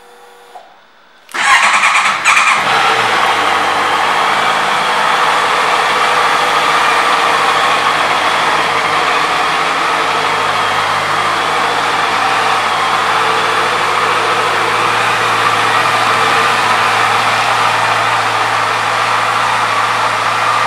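2014 Honda CBR650F's inline-four engine starting about a second and a half in. The revs rise briefly, then settle into a steady idle.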